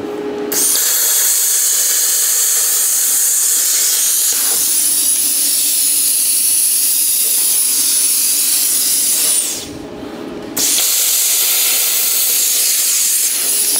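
Small plasma cutter cutting through a steel nut: a loud steady hiss of air and arc with a high thin whine over it, stopping for about a second near 9.5 s and starting again.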